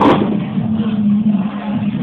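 A sharp click right at the start, then a steady low hum under a haze of background noise.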